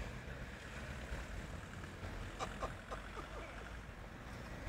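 Wind buffeting the microphone, with a few quick scrapes about two and a half seconds in from an English setter digging a hole in the lawn.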